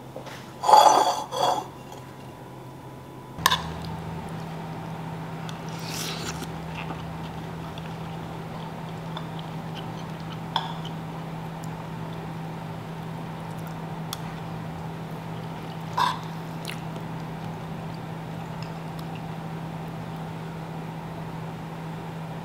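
A metal spoon clinking and scraping against a ceramic bowl while scooping rice and saucy beef, a few separate clinks over a steady low hum. Near the start there is a louder, brief pitched sound.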